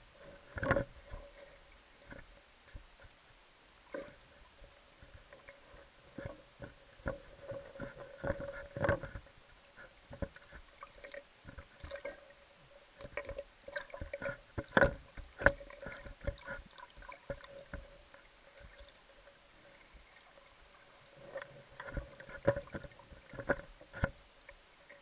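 Muffled underwater sound picked up by a camera underwater: scattered clicks and knocks, some in quick clusters and the loudest about a second in, nine seconds in and fifteen seconds in, over a faint steady hum.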